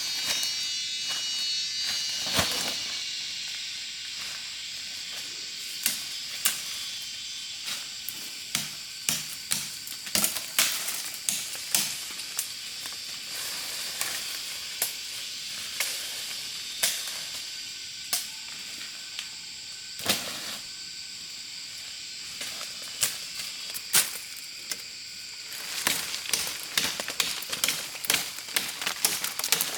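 A steady high insect hiss, with irregular sharp knocks and clicks of handwork starting a few seconds in and coming thick and fast near the end.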